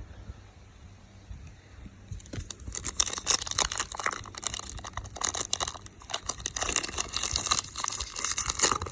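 Foil trading-card pack wrapper crinkling and being torn open, a dense crackling that starts about two seconds in and keeps on.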